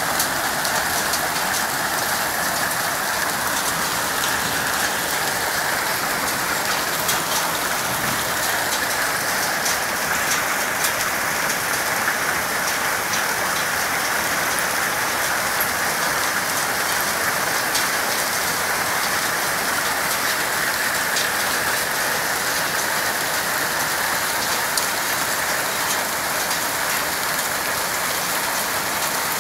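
Hailstorm: heavy rain and hail falling steadily onto surfaces, a dense unbroken patter with scattered sharp ticks.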